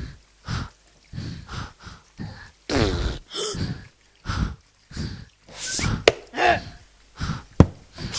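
Children making home-made cartoon sound effects: a quick string of short mouth noises and vocal squeaks, one of them a long sliding whoop about three seconds in, with two sharp clicks later on.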